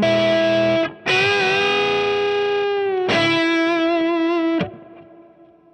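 Overdriven electric guitar, a Gibson SG played through a hand-wired Fender Deluxe Reverb Reissue amp, sounding three held chords with wavering, bent pitch. The last chord is cut off about four and a half seconds in, leaving a fading ring.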